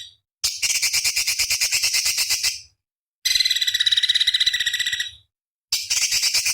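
Orange-bellied leafbird (cucak cungkok) singing harsh, buzzy phrases about two seconds long with short gaps. A steady shrill trill alternates with a fast rattling chatter of about eight notes a second.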